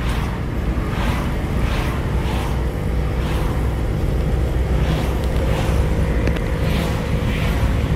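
Steady driving noise inside a moving car's cabin: a low engine and tyre rumble with soft recurring swells of hiss. A faint steady engine tone joins in about three seconds in.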